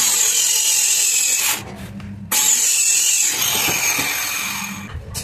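Handheld electric circular saw cutting through a plywood sheet. It cuts in two stretches, with a short break about a second and a half in, and trails off near the end.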